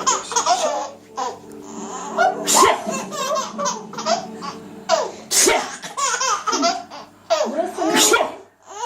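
A baby laughing in bursts, set off by a person coughing. Three sharp coughs, about two to three seconds apart, are each followed by a fresh burst of the baby's laughter.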